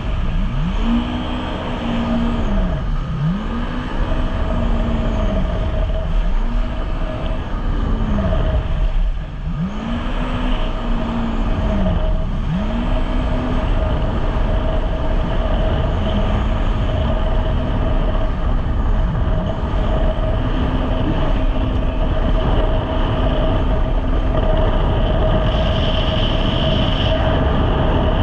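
Jet ski engine running and surging: its pitch climbs and drops back over and over, about once every one and a half to two seconds, then steadies to a more even drone in the second half. The riders take the surging for a problem with the machine.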